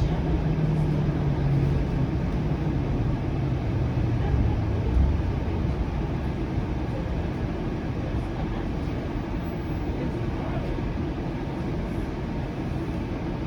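Flexity Outlook streetcar heard from inside while moving: a steady rumble of wheels and running gear. A low motor drone falls in pitch and fades over the first five seconds as the car slows.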